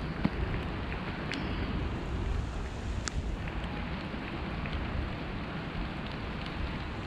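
Wind buffeting the microphone with a steady low rumble, with rain falling and a few scattered light ticks.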